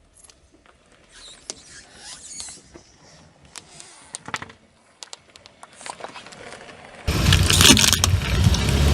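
Faint scattered crackles and creaks, then about seven seconds in a sudden louder stretch of crushing and crackling over a car engine's steady low hum, as the car's tyre rolls over the objects.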